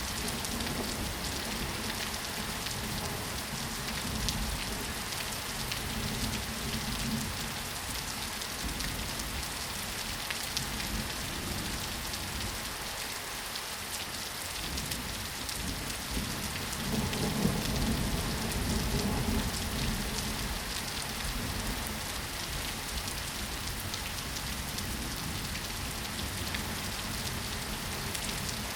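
Steady rain falling: a dense hiss with a fine patter of individual drops. A low rumble swells briefly a little past the middle.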